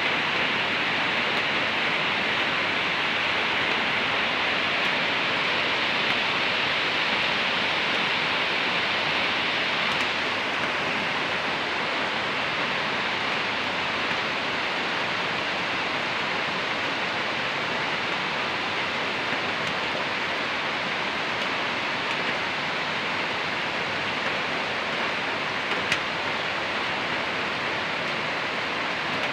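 Heavy tropical rain falling on corrugated metal roofs and a street, a steady dense hiss that eases slightly after about ten seconds.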